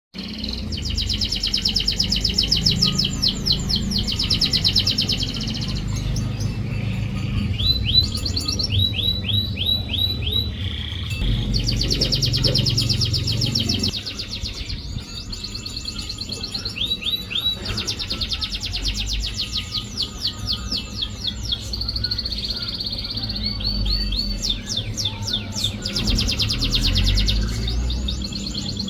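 Domestic canary song used as a lure to get canaries singing: long, fast trills alternate with short series of down-slurred whistled notes, over a low rumble.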